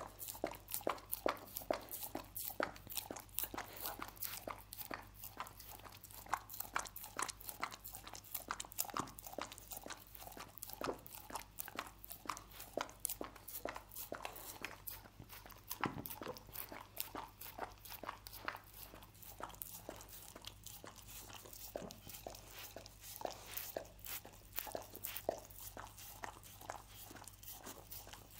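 A dog licking sticky honey off a wooden cutting board: wet tongue lapping and smacking clicks, several a second, without a break.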